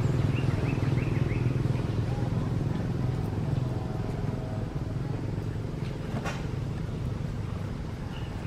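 Small motorbike engine running steadily and slowly fading away, with a few short high chirps about a second in.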